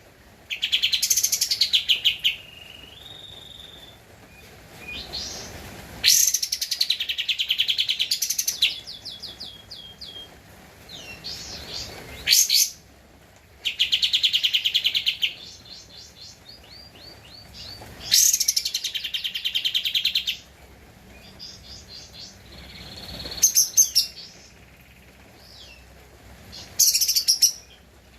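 White-shouldered triller (kapas tembak) singing. Loud, rapid trilled phrases recur about every six seconds, with softer single notes between them.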